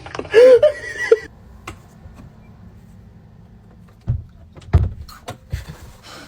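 A brief loud voice, then three dull thumps with clicks of a door being handled, near the end.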